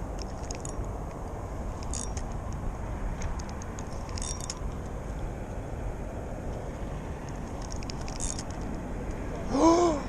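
Steady low outdoor rumble, like distant traffic, with a short high chirp every couple of seconds. Near the end a man gives a loud short cry.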